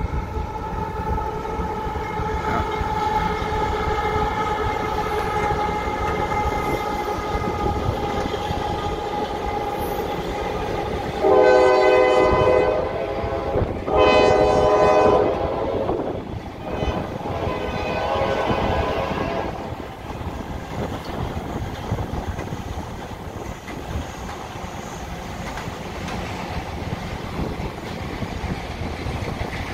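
CSX freight train of autorack cars rolling over a steel railway bridge with a steady rumble and clickety-clack of wheels on rail, while a steady pitched whine fades out around ten seconds in. The locomotive horn sounds two loud blasts about eleven and fourteen seconds in, followed by a fainter third.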